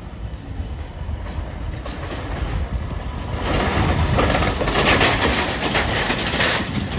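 A van towing an empty flatbed trailer drives over the rails of the level crossing close by. The engine runs low throughout, and from about halfway in the tyres and the trailer rattle and knock over the crossing, loudest for a few seconds before easing off near the end.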